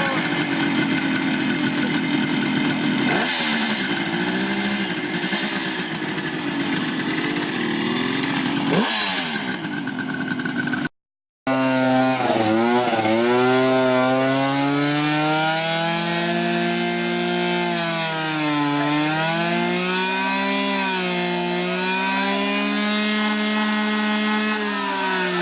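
Vintage Japanese motorcycle engines being revved, the pitch climbing and dropping again and again as the throttle is blipped. There is a short break about eleven seconds in, and the second run is a strong, clear revving.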